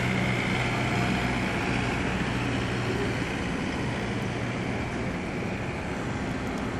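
Steady mechanical rumble with a low engine hum that fades about halfway through.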